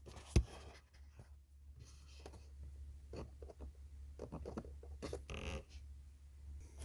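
Hands working on a car's air filter housing and filter: faint scraping and rustling, with one sharp click or knock about half a second in.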